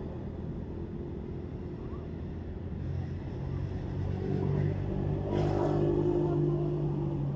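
A steady low engine hum that grows louder about four seconds in, with a short rush of noise near the middle of the swell.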